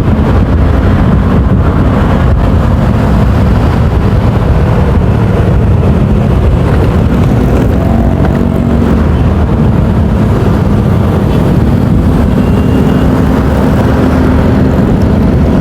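Motorcycle riding at speed: a steady engine hum under heavy low wind rumble on the rider's microphone.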